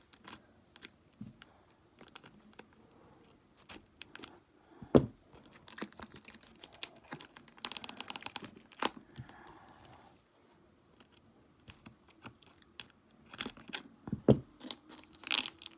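Clear plastic wrap on a glass jar crinkling and crackling as it is cut with scissors and pulled at by hand, with scattered sharp clicks and a longer stretch of crinkling about eight seconds in.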